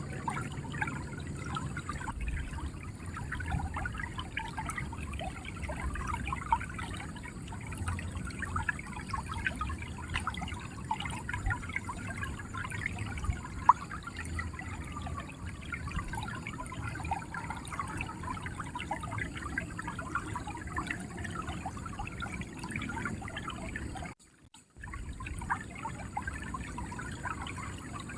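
River water flowing and gurgling, a steady babble of small trickles and splashes. The sound cuts out for about half a second near the end.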